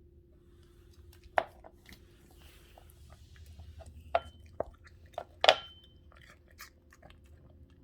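A poodle chewing and crunching apple: scattered short crisp crunches, the loudest about a second and a half in and about five and a half seconds in, over a faint steady hum.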